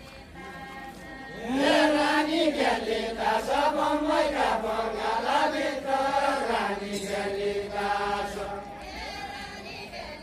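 Voices singing a line of a Deuda folk song together in a rising and falling chant-like melody. The singing starts about a second and a half in and fades near the end.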